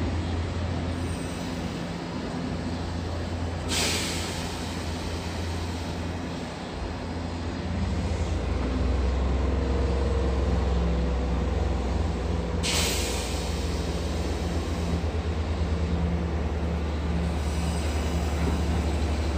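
Sanyo Electric Railway commuter train moving slowly along the platform, its low motor and running hum growing louder about eight seconds in. Two short sharp hisses of compressed air come through, about four and thirteen seconds in.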